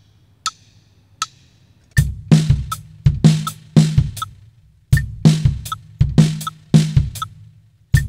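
Metronome clicking at 80 beats per minute, two clicks alone, then a drum kit comes in about two seconds in playing a songo groove over the clicks, with bass drum, snare and cymbal strokes in a steady repeating pattern.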